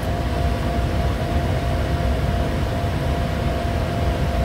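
Cockpit noise of a Bombardier Challenger 350 jet in flight on approach: a steady rush of airflow and engine rumble, with two faint steady hums above it.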